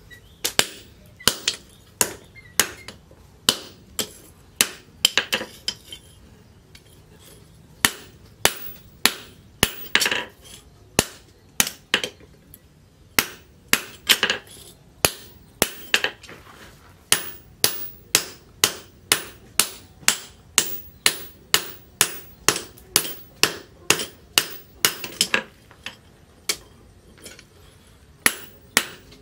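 Hand hammer blows on a red-hot steel axe head held in tongs on a metal post anvil: a steady run of sharp metallic strikes about two a second, quickening later. There is a short pause about a quarter of the way in.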